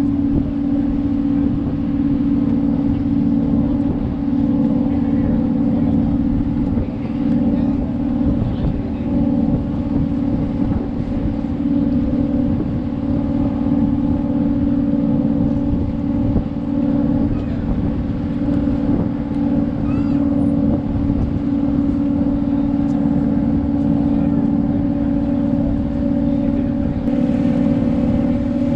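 Engine of a river passenger vessel running steadily while under way, a constant hum over a low rumble.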